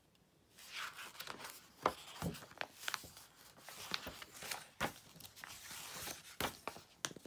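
A paperback picture book being opened and its pages flipped by hand: paper rustling with many sharp crackles and taps, starting about half a second in.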